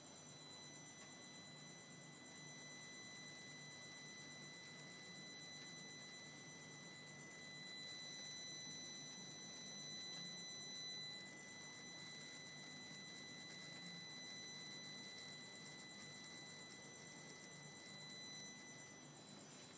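Steady high-pitched buzz from a Peugeot 408's engine over a low hum. The buzz drops out near the end.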